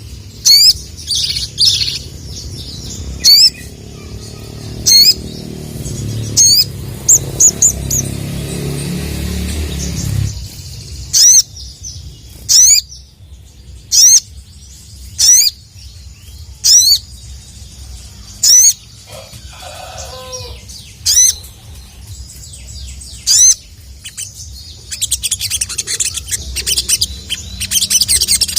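Sogok ontong (little spiderhunter) calling loud, sharp 'cuit' notes, one about every second and a half. Near the end they give way to a dense burst of fast, high twittering.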